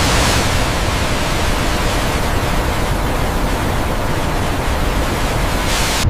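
Large volumes of water gushing out of big pipes and splashing into a tank: a loud, steady rushing torrent.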